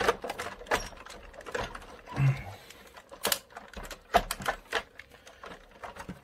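Hard plastic parts of the vintage Shogun Megazord and Titanus toys clicking, knocking and rattling as they are handled and fitted together, in irregular sharp clicks.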